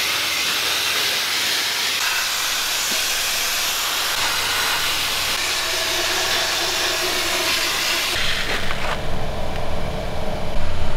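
Pressure-pot sandblaster firing Black Beauty coal-slag grit through its nozzle onto a flanged metal pipe: a steady, loud hiss of compressed air and abrasive. The hiss stops about eight seconds in, and grit rattles as it is poured into the pot.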